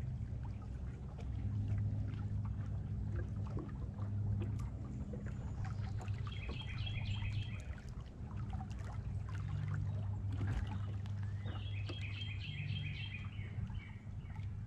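Low steady hum of a bass boat's electric trolling motor that swells and eases as it runs, over water noise. A songbird sings a short phrase of quick repeated notes twice, about six seconds apart.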